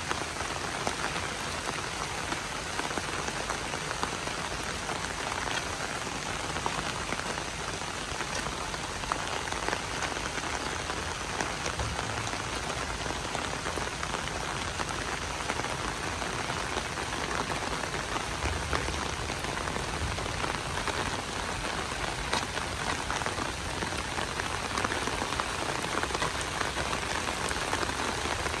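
Steady rain falling on a wet paved path, grass and trees: an even hiss dotted with many small ticks of individual drops.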